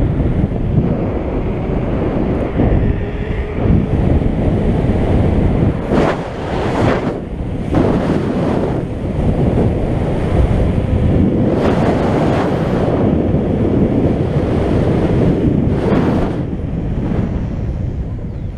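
Heavy wind buffeting on the microphone of a camera carried while riding, a steady loud rumble with several brief surges of hiss.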